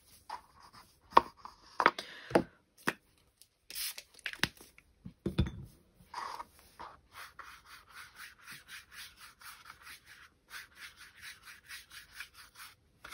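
A few sharp taps and knocks, then a flat watercolour brush stroking back and forth across hot-pressed watercolour card. The brushing is a soft, regular scratching, about two strokes a second, from about six seconds in.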